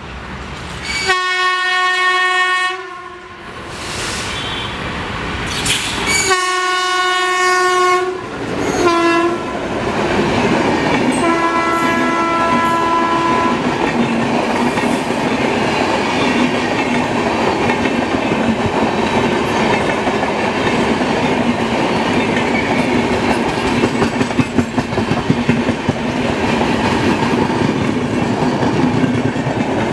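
Indian Railways locomotive horn sounding as the train approaches: two long blasts, a short one, then a fainter longer one. The horn gives way to the steady rumble and clickety-clack of LHB passenger coaches passing close by, with the wheel clatter sharpest near the end.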